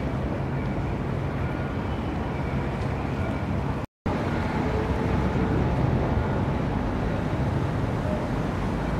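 City street ambience: steady traffic noise with a low engine hum. The sound drops out for a moment about four seconds in, then carries on.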